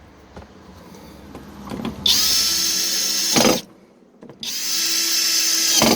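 Cordless drill-driver running twice, about a second and a half each time, its motor whining up to speed at the start of each run. It is driving in the screws that fasten a replacement tailgate lock.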